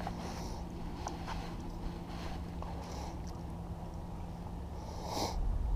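Quiet open-air ambience on a small boat: a low wind rumble on the microphone with a faint steady hum and a few light clicks, and a brief hiss about five seconds in.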